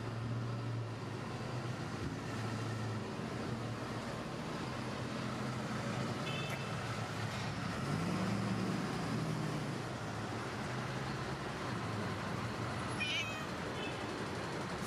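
Grey stray cat meowing a few times, over a steady low hum.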